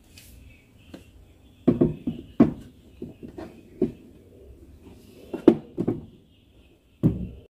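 Decorations being handled and set down on a wooden shelf: a series of irregular knocks and clunks, the loudest ones about two seconds in, in the middle and near the end. A faint steady high hiss runs underneath.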